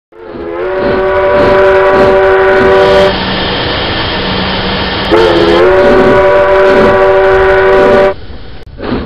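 A train whistle sounding two long blasts, each a chord of several steady notes; the second bends up in pitch as it starts. Between them there is a quieter low hum, and a couple of short puffs come near the end.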